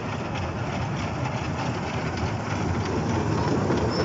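Children's mini train ride running steadily around its small rail track, a continuous low rumble that grows slightly louder near the end.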